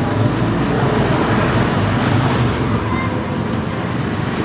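Steady background noise with a low rumble and no distinct events, like distant road traffic.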